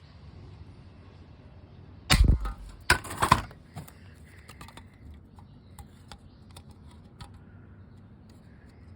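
Airsoft shotgun going off: a loud sharp bang about two seconds in, then a second burst of several sharp cracks about a second later, followed by scattered light clicks.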